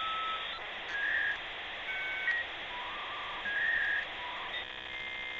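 Channel intro sound effect: a string of short, steady whistle-like tones jumping between pitches over a hiss, changing to a buzz near the end.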